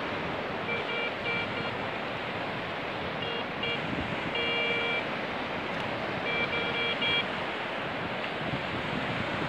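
Garrett 150 metal detector giving short repeated beeps in four bursts as its coil sweeps over a buried metal target in wet sand. Steady surf and wind hiss underneath.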